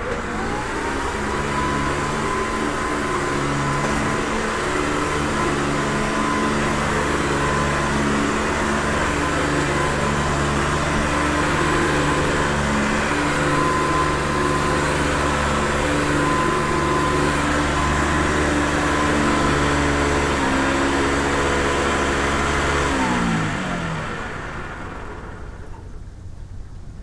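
Hoover Convertible upright vacuum cleaner switched on, its motor spinning up with a quick rising whine and then running steadily. A few seconds before the end it is switched off, and the whine falls in pitch as the motor winds down and fades.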